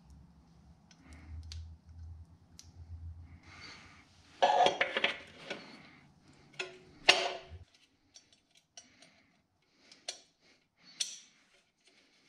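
Steel clutch fork and throwout bearing clinking and clattering against the transmission's bell housing as they are fitted over the input shaft onto the pivot ball. The clatter is heaviest about four to five seconds in, with a sharp clink about seven seconds in, then a few light clicks.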